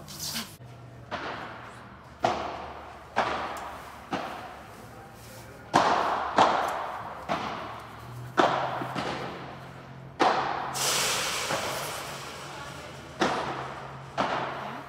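Padel rally: a ball struck back and forth with padel rackets and bouncing off the court and glass walls, sharp hits about once a second, echoing in a large indoor hall. A short noisy burst comes about ten seconds in.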